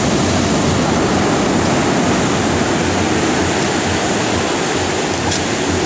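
Storm surf breaking and churning, a steady loud rush of water.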